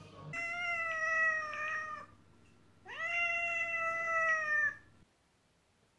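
A cat meowing twice: two long, drawn-out meows about a second apart, the second rising in pitch at its start.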